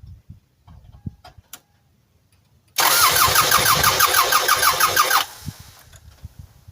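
Starter cranking the 1999 Toyota Sienna's 3.0-litre V6 for about two and a half seconds, with an even pulsing beat of about five a second, then stopping abruptly. The fuel-injection fuse is pulled for a compression test, so the engine turns over without firing. A few light knocks come before it.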